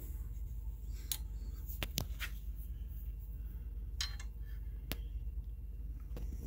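A handful of short, sharp metallic clicks as a steel rule is handled and set against a brass lathe banjo and the iron bed, over a low steady hum.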